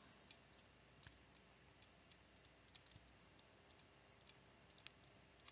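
Near silence, with a few faint, scattered ticks of a stylus writing on a tablet.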